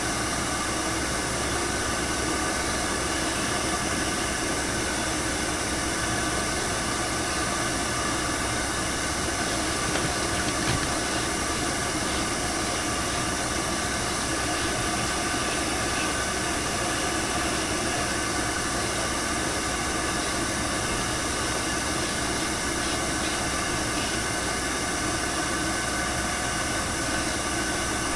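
Steady rushing noise with a faint whine held at an even pitch, like a motor-driven blower running without pause.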